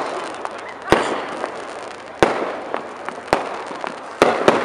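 Fireworks going off: five sharp bangs, roughly one a second, with crackling in between.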